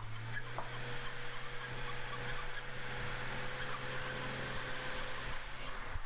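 Sand delivery truck's engine running steadily, with a steady whine starting about half a second in and fading out near the end.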